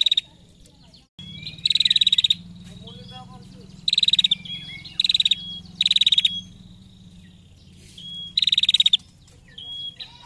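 Caged female prenjak giving its ngetir call: about five loud, fast rattling trills, each under a second long, with short thin whistled notes between them.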